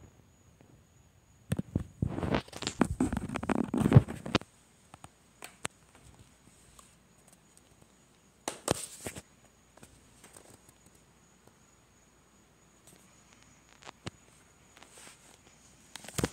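Handling noise from a phone being moved over bedding: scattered clicks and knocks, with a loud stretch of rustling about two to four seconds in and a shorter one near nine seconds.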